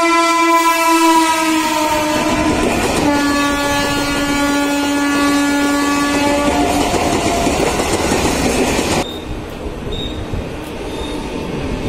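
Train horn sounding in a long blast of several seconds, dropping to a lower pitch about three seconds in, over the rumble and clatter of a Mumbai suburban local train running. The horn stops about seven seconds in, and about nine seconds in the running noise falls off suddenly to a quieter rumble.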